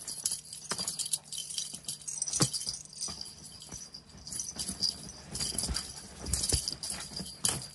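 Small bells jingling irregularly, with scattered light clicks and knocks, as cats play with a toy.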